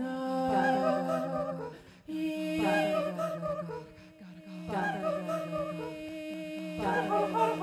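A woman's voice, processed and layered live with electronic looping: held sung tones stack up beneath a short curving vocal phrase that repeats about every two seconds.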